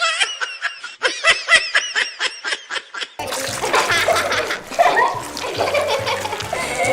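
A child's laughter, a quick run of short ha-ha sounds. About three seconds in it gives way to a denser, noisier mix with voices and background music with a low beat.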